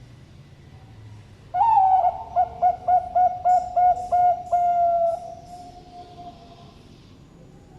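Bangkok-bred zebra dove (perkutut) cooing its contest song: an opening note that drops in pitch, a quick run of about eight short, evenly spaced coos, and a final longer drawn-out coo that fades away.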